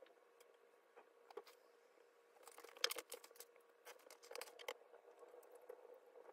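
Quiet rustling and small clicks of paper being handled as a book is picked up and opened at a desk, busiest in the middle, over a faint steady hum.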